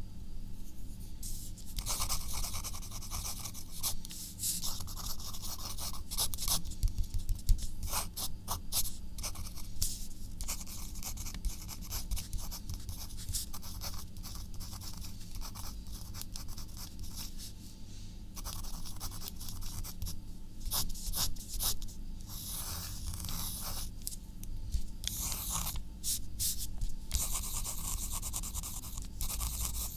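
Writing by hand on paper: a pencil or pen point scratching across the sheet in quick strokes and longer runs, with short pauses between them.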